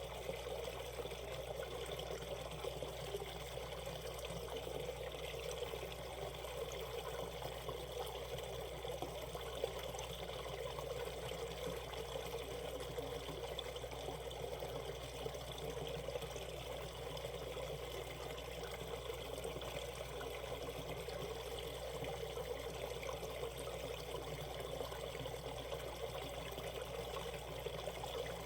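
Shallow mountain stream flowing and splashing over rocks in a steady, unbroken rush of water.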